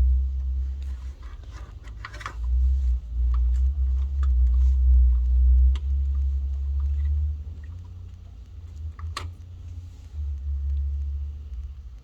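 Heavy low rumble of handling or wind noise on the microphone, coming and going, with scattered clicks and scrapes of plastic as a power switch is pried out of its panel with a flat screwdriver; two sharper clicks, one about two seconds in and one near nine seconds.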